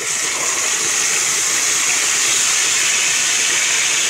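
Corned beef brisket sizzling in a pan of hot oil and meat drippings on a gas burner, a loud steady hiss as the meat sears and browns.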